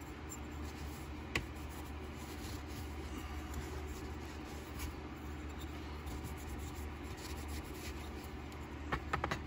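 Paper towel rubbing and wiping over a Buck Spitfire's anodized aluminium handle scale, a faint steady scuffing. A light click about a second in and a few small clicks near the end.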